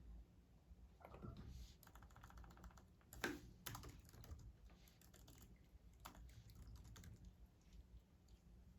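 Faint scattered clicks and light taps, with a quick run of rattling ticks about two seconds in and the sharpest click just after three seconds.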